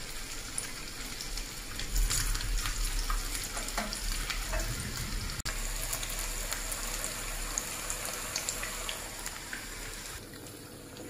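Chicken-and-potato kabab patties shallow-frying in hot oil in a frying pan: a steady sizzle dotted with small crackles and pops, easing a little near the end.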